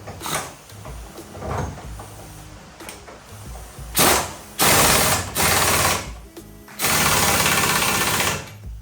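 MIG welder laying bursts of weld on car body sheet metal: a short burst about four seconds in, two more just after, then a longer steady crackling run of about a second and a half near the end.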